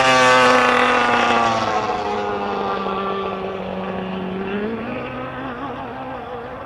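Racing jet boat's engine passing close at full speed, its pitch dropping as it goes by, then fading steadily as the boat speeds away across the lake. About four and a half seconds in, the engine note climbs.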